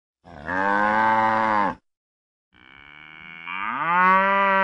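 Cow mooing twice: a moo of about a second and a half, then a longer moo that rises in pitch before holding steady.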